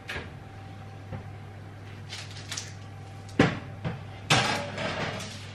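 An oven door opens, then a metal baking tray knocks against the oven rack and slides in with a clattering scrape. The loudest knock comes about three and a half seconds in.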